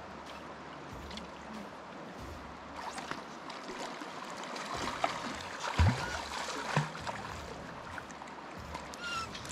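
River water running steadily, with a few scattered knocks and clicks in the middle, the loudest a low thump about six seconds in.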